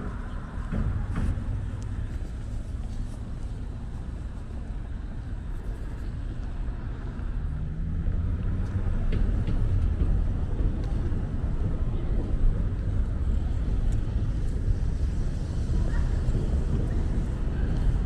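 Steady low rumble of city street traffic, getting a little louder about halfway through as vehicles pass.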